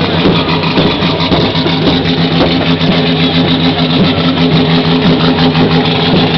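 Chevrolet race car's engine running at a steady idle.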